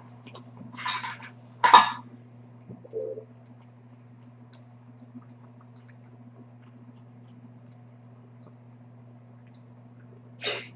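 A cat eating wet food from a stainless steel bowl over a steady low electrical hum, with short noisy bursts about one and two seconds in and again near the end, the one just before two seconds the loudest.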